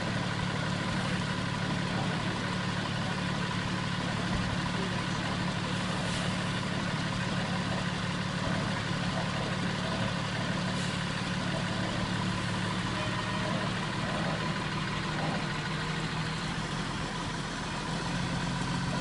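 Concrete mixer truck's diesel engine idling with a steady low hum, easing slightly near the end.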